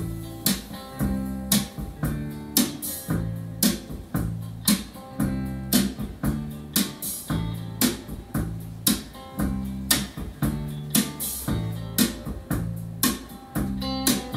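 Recorded music with guitar, deep bass and a steady beat of about two hits a second, played back through a Dynaco ST-70 tube amplifier, ADS L810 floor speakers and a subwoofer in a listening room.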